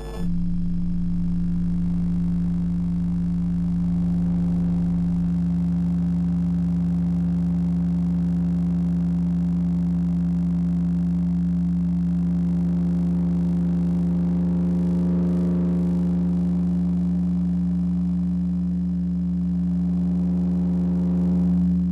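Electromagnetic fields made audible through induction headphones, here by a large video display screen: a steady electrical hum with a strong low tone and several overtones, starting abruptly. Higher tones swell in about halfway through and it grows slightly louder near the end.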